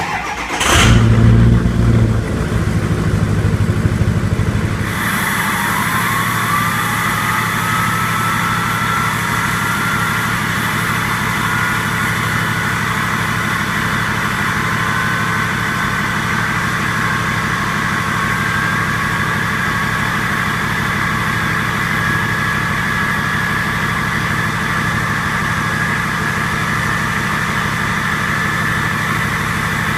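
2007 Ford 6.0 Powerstroke V8 turbodiesel, exhaust straight-piped with the cat and muffler removed. It comes in loud and abruptly, settles after about five seconds into a steady idle, and from then on the turbo whistles, the tone slowly climbing in pitch.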